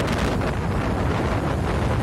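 Wind buffeting the microphone while moving along a road at speed: a steady low rumble with no let-up.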